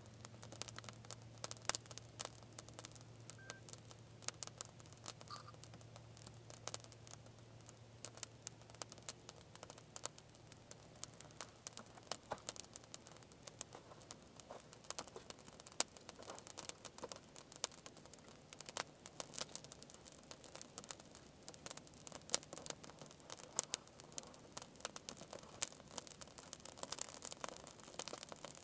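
Small twig fire crackling, with frequent sharp, irregular snaps.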